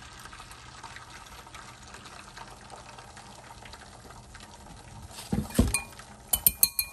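Beaten eggs poured into a hot buttered skillet, sizzling in a steady, quiet hiss. About five seconds in come a couple of dull knocks, then a quick run of sharp clinks of dishes.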